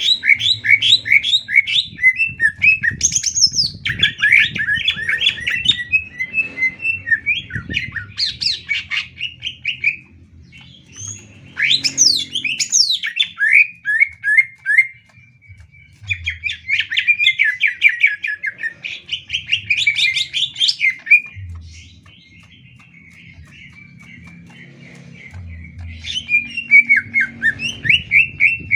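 Green leafbird (cucak ijo) singing, in loud bursts of rapid, chattering and sliding high notes with short pauses between phrases.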